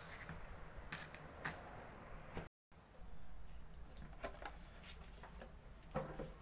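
A few sharp clicks of a knife blade striking a plastic chopping board while cutting pork, then, after an edit, light knocks of a non-stick pot being handled on a stove, the fullest about 6 seconds in.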